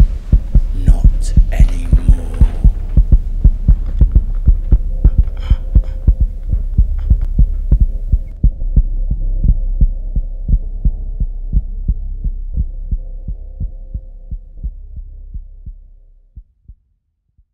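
Heartbeat sound effect: fast, regular, heavy thumps over a steady low hum, standing for the beating heart the guilt-ridden man hears under the floor. It fades away over the last few seconds and stops shortly before the end.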